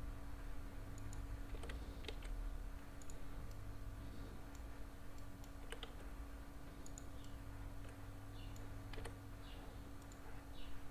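Scattered clicks of a computer mouse and keyboard keys, a few at a time, over a steady low hum.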